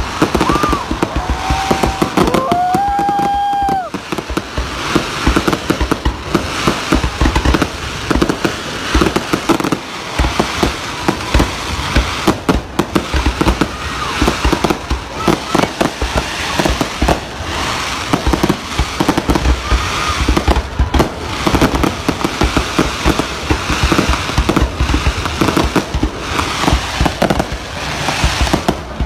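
Fireworks display: a dense, continuous barrage of aerial shell bangs and crackling. A steady high tone is held for about two seconds, two to four seconds in.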